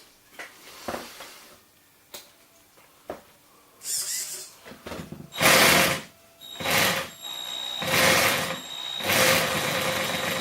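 A few small handling clicks, then a small electric RC motor driving a homemade geared peg-and-tooth clacker, meant to imitate a V8, in three short bursts before it runs steadily near the end.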